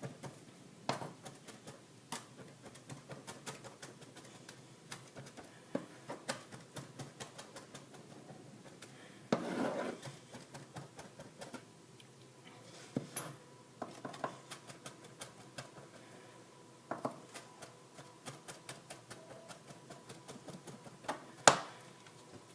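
Kitchen knife chopping garlic on a cutting board: runs of quick taps, about three a second, broken by short pauses and a few louder knocks.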